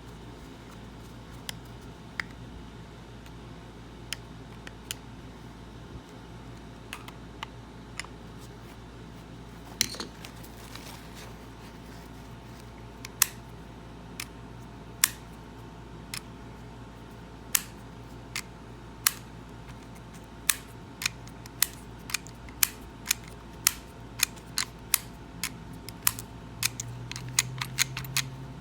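Sharp metallic clicks of an antique Russwin mortise lock's parts being worked by hand. They are sparse and irregular at first, then come faster and louder over the second half, over a steady low hum.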